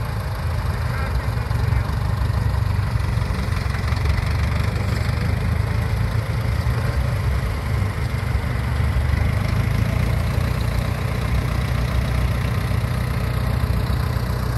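Large modern diesel farm tractor engine running steadily, with a deep, low sound and no change in speed.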